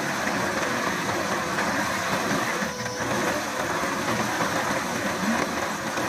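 Centerline HS57 hydraulic manhole cutter grinding a circular cut into asphalt, over the running engine of the compact track loader that powers it. A steady, rough grinding noise that eases briefly a little before the middle.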